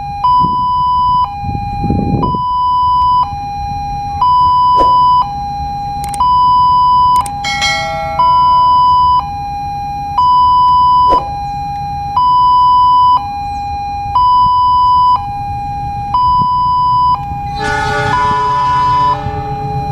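Railway level-crossing warning alarm sounding a steady hi-lo two-tone, switching between a higher and a lower note about once a second. A brief blast with many overtones cuts in about seven seconds in, and a louder, longer one comes near the end.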